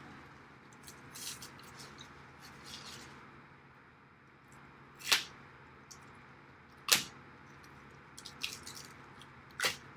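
A few sharp clicks and knocks over a steady background hiss, the louder ones about five, seven and nine and a half seconds in.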